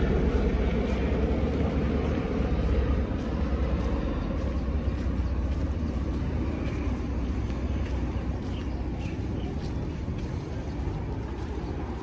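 Steady low outdoor rumble with no clear pitch, slowly growing fainter, with a few faint short chirps about eight to nine seconds in.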